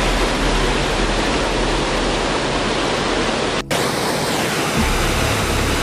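Fast water rushing over a small weir and down a concrete channel: a steady, loud rushing noise that drops out for a split second about two-thirds of the way through.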